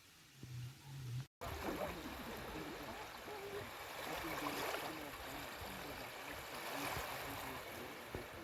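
Small waves washing gently on the beach, a soft steady rush of water. It drops out completely for a moment about a second in.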